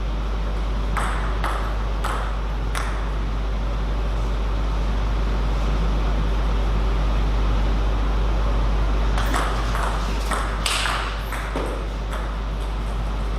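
Table tennis ball clicking off rackets and the table in quick exchanges, about one hit every half second: four hits in the first three seconds, then another run of hits after a pause. A steady low hum lies under it all.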